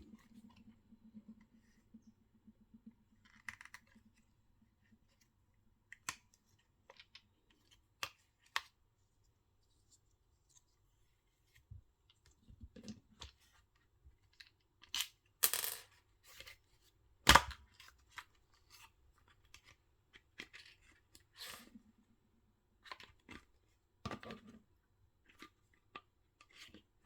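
Scattered clicks, scrapes and snaps of a Medela Swing breast pump's plastic housing and parts being handled and pried apart, with one loud sharp snap a little past the middle.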